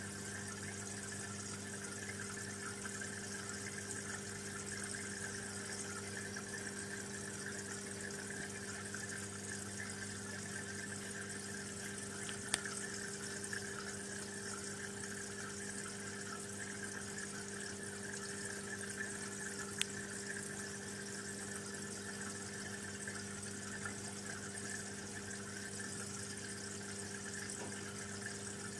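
Aquarium pump humming steadily under the continuous bubbling and fizz of water from an air stone. Two faint clicks in the middle.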